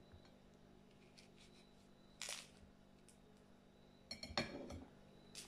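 Small kitchen knife cutting a peach, with a short scrape about two seconds in, then a quick cluster of clicks and clinks near the end as the knife knocks against a plate.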